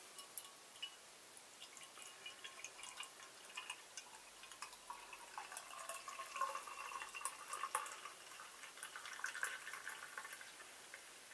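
Pale ale being poured into a glass: faint trickling and splashing of the beer as the glass fills, starting a couple of seconds in and stopping shortly before the end.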